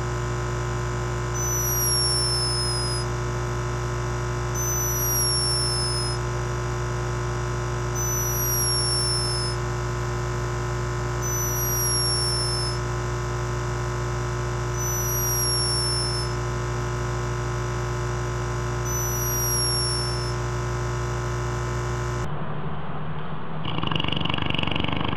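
A sleeping animal snoring with a high, falling whistle on each slow breath, six times about three seconds apart, over a loud steady hum. The sound changes abruptly near the end.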